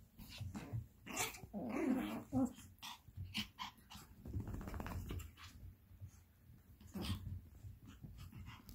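Small dogs (Pomeranians) growling as they tussle, loudest about two seconds in, with scuffling and short sharp clicks throughout.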